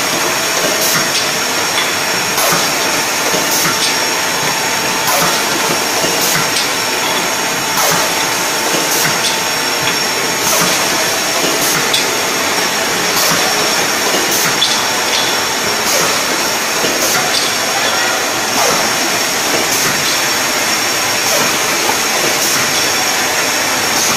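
Automatic pickle filling machine and its jar conveyor running: a steady loud mechanical hiss and hum, with a sharp click about three times every four seconds as the machine cycles.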